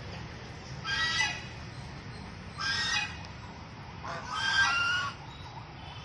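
White domestic geese honking: three calls spaced about one and a half seconds apart, the last one longer and the loudest.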